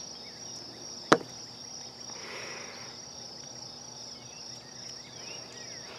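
Steady chorus of crickets, a continuous high-pitched trill, with one sharp click about a second in.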